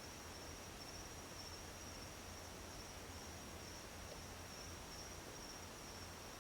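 Faint, steady chorus of night insects such as crickets: one high, unbroken chirring over a background hiss.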